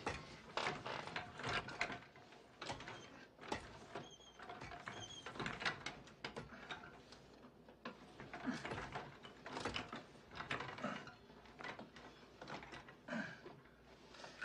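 Manual wheelchair being wheeled by hand, its metal frame and wheels giving an irregular run of clanks, rattles and creaks, with a couple of short squeaks about four seconds in.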